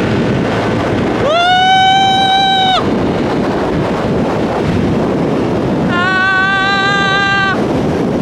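Wind rushing over the microphone on a Honda Forza 125 scooter running at full throttle. The rider gives two long, high shouts, one starting about a second in and another about six seconds in.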